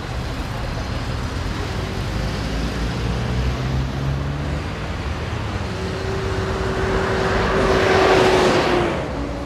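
Passing road traffic: car engines and tyres on an urban avenue. One vehicle passes close with a steady whine, swelling to the loudest point about eight seconds in, then fading.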